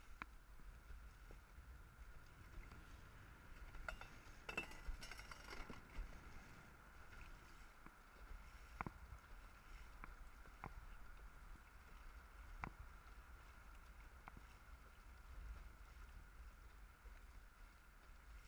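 Faint, muffled sound of a dragon boat being paddled: water washing past the hull and wind on the microphone. A few sharp knocks stand out, three of them about two seconds apart in the middle.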